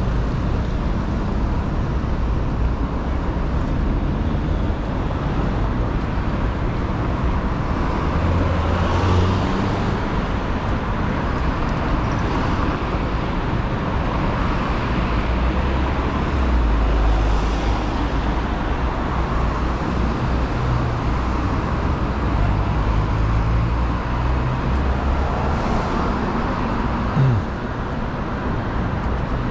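City street traffic: a steady rumble of engines and tyres, with vehicles passing closer three times, and a brief sharp sound near the end.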